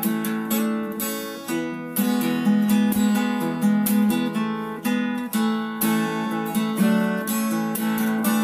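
Background music: an acoustic guitar strumming chords in a steady rhythm.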